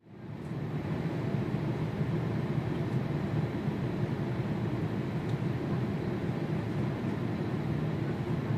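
Jet airliner cabin noise in flight: a steady low rumble with a hiss above it, fading in at the start.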